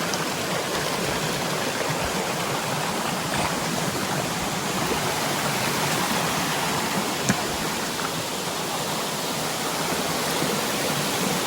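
Waterfall and its stream rushing steadily, a constant hiss of falling and flowing water heard from the top of the falls. One brief click about seven seconds in.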